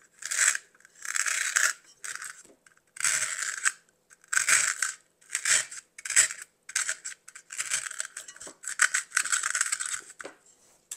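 Scissor points gouging and scraping a hole into a block of styrofoam: about a dozen short, dry, scratchy strokes at an uneven pace.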